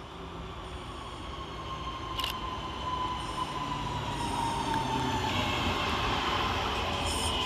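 Class 323 electric multiple units arriving and slowing, their traction whine falling slowly in pitch as it grows louder. A higher squeal joins about five seconds in, and there is one short click about two seconds in.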